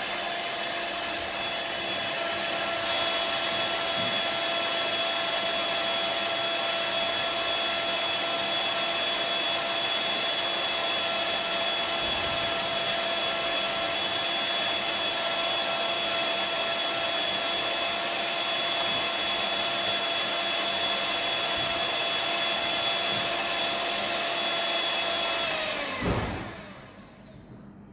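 Electric hand mixer running steadily with a whine, its beaters whipping matcha, sugar and hot water into a thick dalgona foam. About two seconds before the end it is switched off and the motor winds down to a stop.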